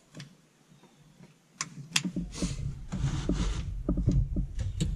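Scattered clicks and knocks from hands working loose seatbelt hardware and plastic interior trim in a stripped car, getting busier with a low rumble from about two seconds in.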